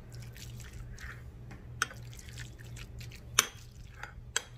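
Metal spoon stirring moist chicken salad in a glass bowl: soft, wet mixing sounds with three sharp clinks of the spoon against the glass, the loudest about three and a half seconds in.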